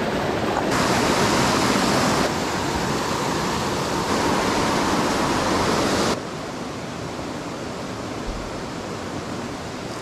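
A rocky creek rushing over stones and small cascades, a steady noise with no distinct sounds in it. It gets abruptly louder about a second in and drops quieter about six seconds in.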